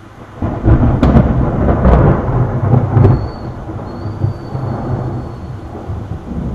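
Close thunderclap: a sudden loud crash about half a second in, with several sharp cracks over the next two and a half seconds, then a deep rumble that slowly fades over steady heavy rain.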